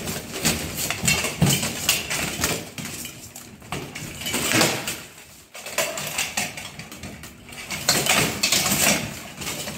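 Steel plate armour clanking and weapons clattering against armour as two armoured fighters clash and grapple. The sound comes in several bursts of sharp metallic impacts with quieter gaps between.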